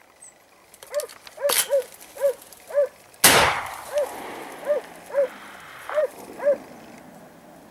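Hunting dogs barking about ten times in short, separate yelps. A single gunshot cracks about a third of the way in and is the loudest sound, its report rolling on for over a second as an echo.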